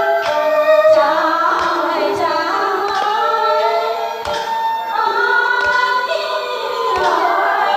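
A woman singing into a microphone with a wavering, held-note melody over instrumental accompaniment. Sharp percussive taps come about once a second.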